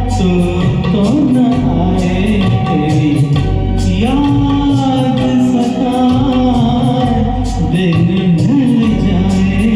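A man singing a Hindi film song over a karaoke backing track, his melody sliding between held notes over sustained accompaniment and a steady light percussion beat.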